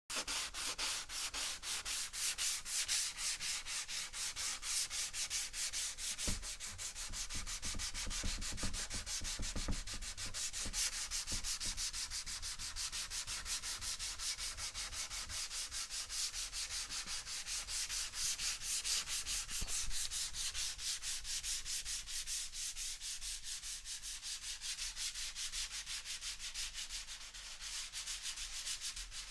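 Sandpaper rubbed back and forth over wood in quick, regular strokes, a steady scratchy hiss that starts suddenly.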